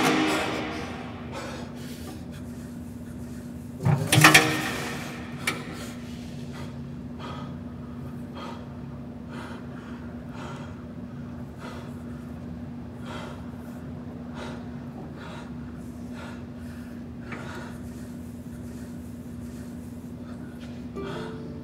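A low, steady drone with a loud, short rushing burst about four seconds in, followed by faint, irregular ticks or taps every second or so.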